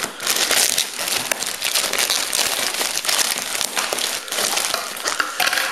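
A plastic courier bag and bubble wrap crinkling and rustling as they are handled by hand.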